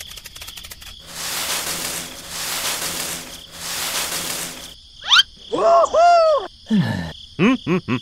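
Cartoon sound effects: three swells of rustling, a quick rising whistle about five seconds in, then high, squeaky gibberish chatter from a cartoon character.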